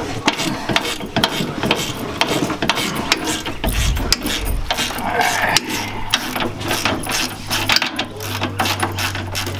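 Hand ratchet with a 17 mm socket clicking rapidly, back and forth, as it loosens the sway bar fastener on a Hyundai Genesis Coupe's rear suspension. A steady low hum comes in about halfway through.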